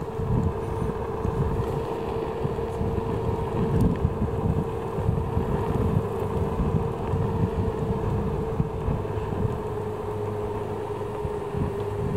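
Kugoo M3 Pro electric scooter riding at a steady speed: a steady motor whine with wind buffeting the microphone and a rumble from the tyres on the road.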